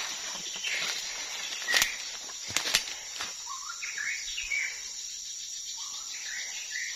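Birds singing short phrases of rising and falling whistled notes over a steady high insect drone. A few sharp clicks come around two seconds in.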